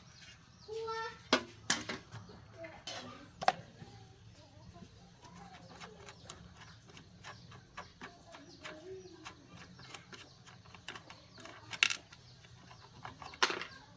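Scattered sharp knocks and clicks, four of them loudest, from hands-on repair work, with a short pitched call about a second in and faint voices.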